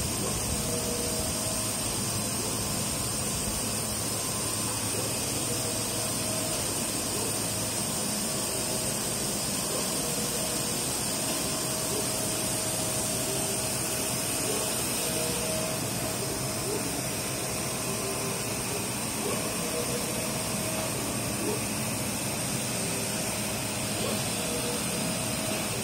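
Maxcan UV flatbed printer running while printing: a steady fan-and-suction noise with a constant high whine, and a mid-pitched motor tone that comes and goes as the print carriage moves.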